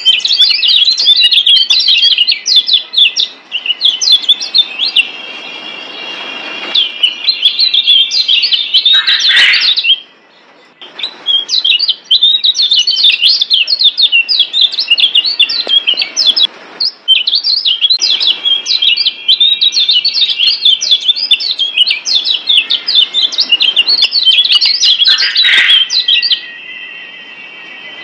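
Kecial kuning (Lombok yellow white-eye, a Zosterops) singing a fast, dense chatter of high chirps in long bouts. The song breaks off briefly about ten seconds in and again near the end.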